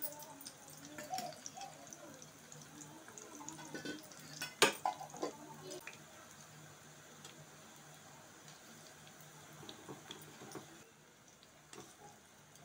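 Patra pieces shallow-frying in oil in a kadhai: a light sizzle with scattered small crackles and pops. A single sharp click about four and a half seconds in.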